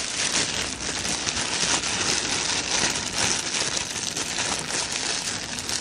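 Thin plastic bread bag of English muffins crinkling and rustling in a hand as a muffin is pulled out: a steady, dense crackle of many tiny snaps.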